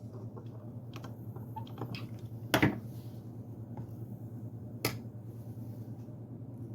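Three sharp clicks and knocks of objects being handled, the loudest about two and a half seconds in, over a steady low hum.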